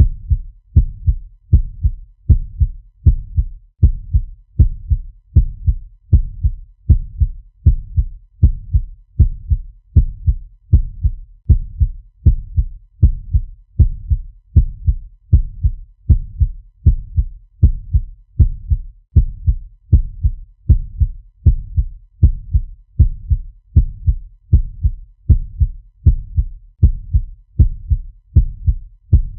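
Heartbeat sound effect: a fast, steady rhythm of deep double thumps (lub-dub), repeating evenly without a break.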